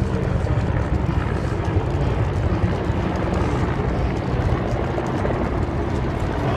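Several helicopters flying over in formation, a steady low rotor drone.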